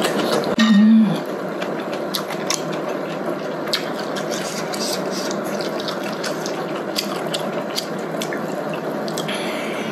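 Hotpot broth simmering in an electric pot: a steady bubbling hiss with scattered small pops and clicks of eating. A short hummed "mm" about a second in.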